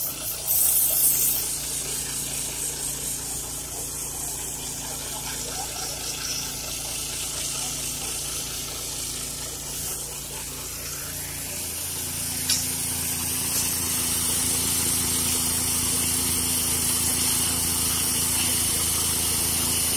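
Small petrol engine of a portable rail grinder running steadily on the track, with a hissing grind over its drone that grows louder from about halfway through.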